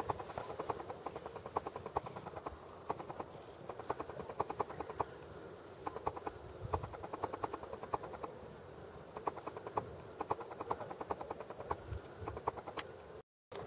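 Domestic cat purring close to the microphone: a rapid rhythmic rattle in spells of about a second, with short breaks between breaths.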